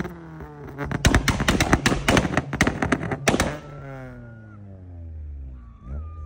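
Car engine revved hard, its exhaust popping and crackling in a rapid string of loud bangs for about two and a half seconds, then the revs falling away to a lower engine drone.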